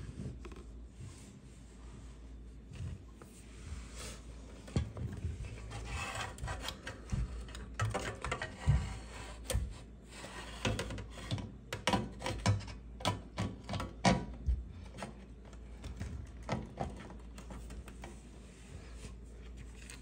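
A dishwasher heating element being worked by hand into its port in the tank: metal scraping and rubbing, with irregular clicks and knocks from the flange and its wires, busiest in the middle and easing off near the end.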